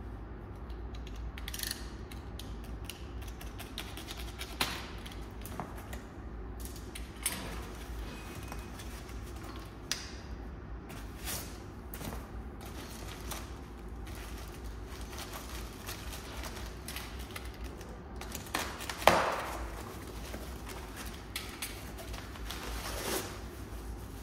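Unpacking handling sounds: scattered clicks and snaps as plastic cable ties are cut with a utility knife, and rustling as foam packing blocks and bubble wrap are pulled off an electric scooter. One louder rustle stands out about three-quarters of the way through, over a low steady hum.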